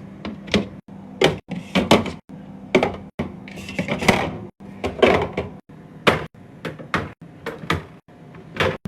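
Quick, irregular run of knocks, clunks and scrapes from a refrigerator and its parts being handled and worked on, spliced in short cuts that stop abruptly, over a low steady hum.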